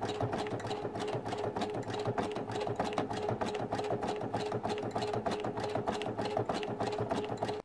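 Domestic sewing machine running steadily while sewing a satin stitch (dense zigzag): a steady motor hum under rapid, even needle strokes. It stops abruptly at the end.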